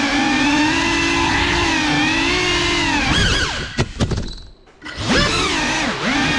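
FPV quadcopter's motors and propellers whining, the pitch rising and falling with the throttle. About three and a half seconds in, a few sharp knocks as it crashes onto the floor. The motors then cut out for about half a second and spin back up as it lifts off again.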